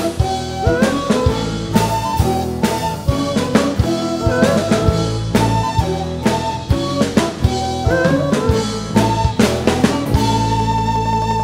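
Live fusion band playing an instrumental passage: drum kit hits and fills over sustained melodic instruments, settling into a long held chord near the end.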